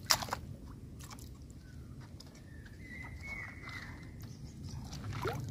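Hands handling a plastic bait container and kneading bait in a tub: a sharp click right at the start, then faint scattered clicks and soft squishing handling noises.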